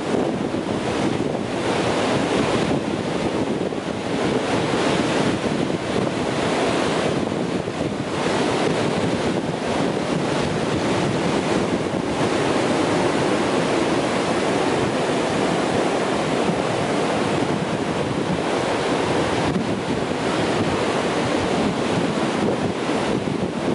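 Atlantic Ocean surf breaking offshore and washing up the beach in a continuous rush.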